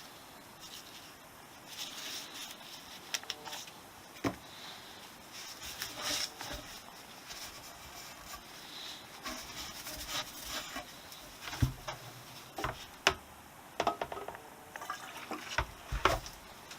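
Irregular clicks, taps and a few dull thumps of parts being handled by hand, sparse at first and busier in the second half.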